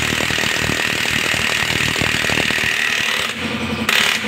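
Impact wrench hammering rapidly on the clutch centre nut of a motorcycle engine, stopping a little before the end and followed by a couple of sharp clacks.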